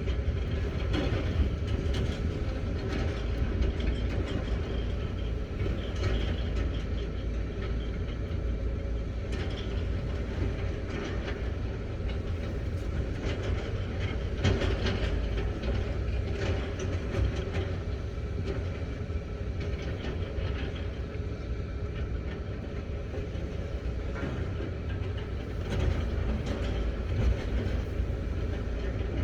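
Excavator's diesel engine running steadily as a low rumble, with scattered metallic clanks and knocks from the machine working.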